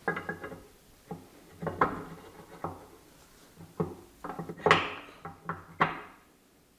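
Flanged metal pulley clutch housing being slid onto its shaft and seated against the shaper's gearbox casting: an irregular string of metal clunks and clinks, each with a short ring, stopping shortly before the end.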